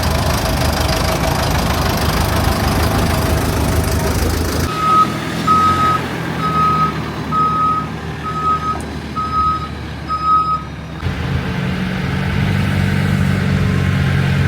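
JCB backhoe loaders' diesel engines running, the engine sound changing abruptly about five seconds in and again near eleven seconds. In the middle stretch a reversing alarm beeps seven times at one steady pitch, about once every three-quarters of a second.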